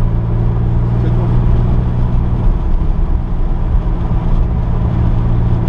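Car engine running at a steady drone while lapping a race track, heard from inside the cabin with road and wind noise; the engine note breaks off briefly about halfway through, then returns.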